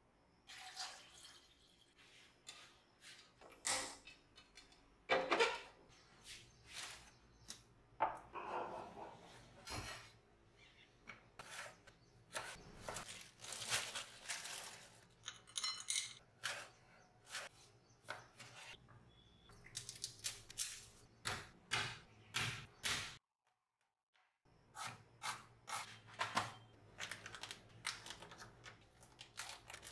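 Close-up kitchen prep sounds: eggs knocking against a steel pot, a plastic bag of corn kernels crinkling and rustling, and scissors snipping open a packet. It is a string of separate clicks, taps and knocks, broken by a short silent gap about three-quarters of the way through.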